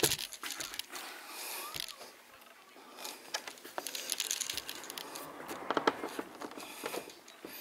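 Irregular crinkling and tearing sounds with many small clicks, from material being handled, denser about six seconds in.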